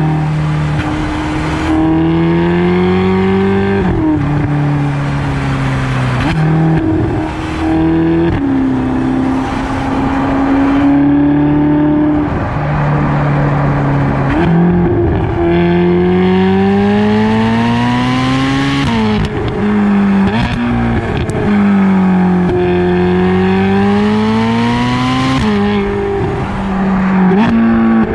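Ferrari California 30's front-mounted 4.3-litre V8 driving on the road. Its note climbs steadily as the car accelerates and drops sharply at each gear change, several times over.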